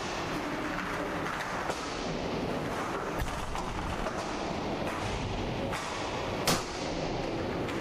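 Inline hockey play: steady rink noise with a few sharp knocks of sticks and puck, the loudest about six and a half seconds in.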